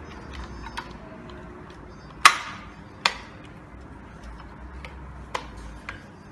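Plastic parts of a baby rocker clicking and knocking as they are handled during assembly: two sharp knocks a little over two and three seconds in, with lighter clicks before and after.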